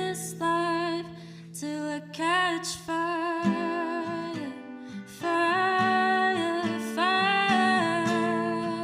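A singer performing a song to acoustic guitar. The voice holds long notes with vibrato over plucked and strummed chords.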